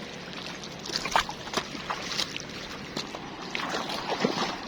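Water splashing in irregular bursts from about a second in, as a hooked fish thrashes at the surface while it is being brought in.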